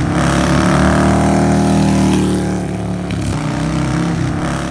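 Motorcycle engine revving: its pitch climbs over the first two seconds, drops back, then runs steadily.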